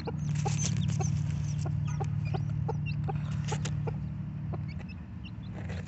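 Broody hen sitting on her newly hatched chicks, clucking low and steadily at about three clucks a second, with faint high chick peeps.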